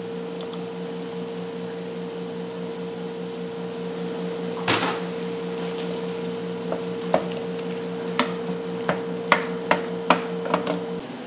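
Wooden spoon knocking and scraping against a stainless-steel electric skillet while diced chicken and canned green chilies are stirred: one sharp clatter a little before halfway, then a string of quick knocks through the second half. A steady low hum runs underneath and cuts off shortly before the end.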